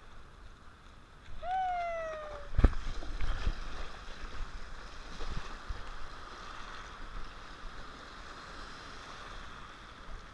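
Shallow ocean surf washing and sloshing around a surfboard, with wind on the microphone. About a second and a half in, one high held cry that falls slightly in pitch, then a sharp knock.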